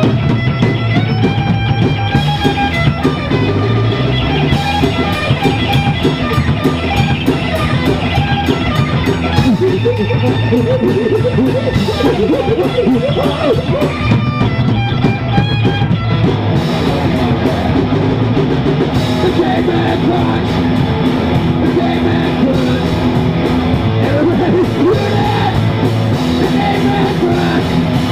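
Rock music: a band playing guitar over a drum kit.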